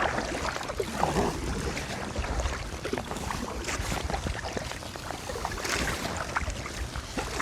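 Water slapping and splashing around a kayak as it rocks through a boat's wake, with irregular small splashes and wind buffeting the microphone.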